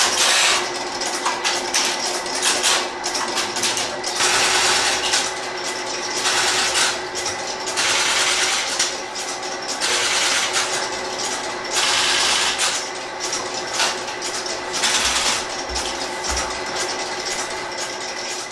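Stromberg-Carlson XY telephone switches and their relays stepping, a dense rapid mechanical clicking and clattering that swells in louder surges every second or two.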